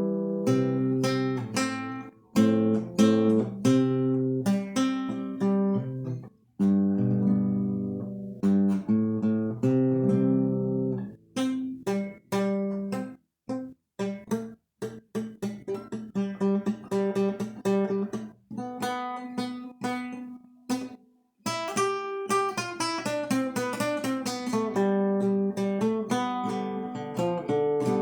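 Acoustic guitar (violão) played solo, trying out the key: strummed chords for the first several seconds, then a stretch of quick single picked notes broken by short pauses, then ringing chords and arpeggios again near the end.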